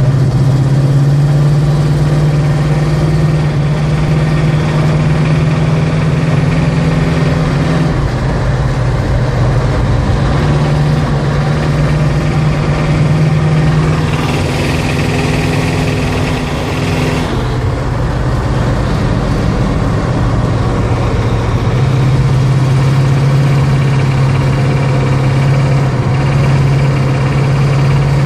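Car engine running with a steady low hum whose pitch shifts a few times: up about a quarter of the way in, down again past halfway, back up near three quarters; a brief hiss joins it in the middle.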